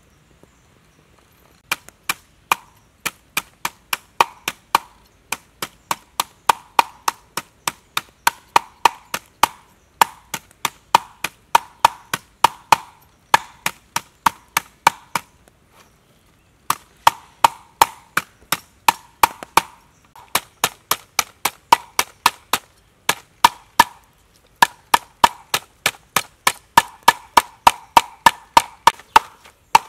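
Knife chopping water snake meat on a round wooden chopping block: quick, even strokes of about four a second, starting about two seconds in and stopping briefly twice.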